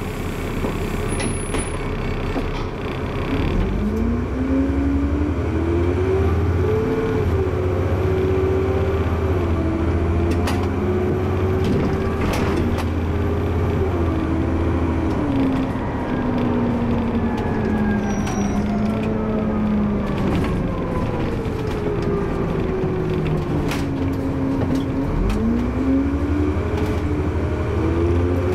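Bus engine and transmission heard from inside the bus, with a steady low rumble under a pitched whine. The bus pulls away with a rising whine about four seconds in and steps through its gears. The whine then falls away as the bus eases off, and rises again near the end as it accelerates once more.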